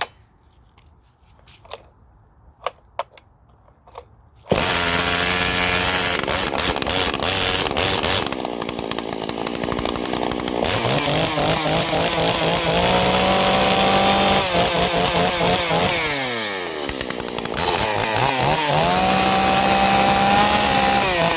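A few small knocks, then a Solo 667 two-stroke chainsaw with a 28-inch bar comes in abruptly about four and a half seconds in. It is revved up and held high, drops back toward idle, then is revved up and held high again near the end.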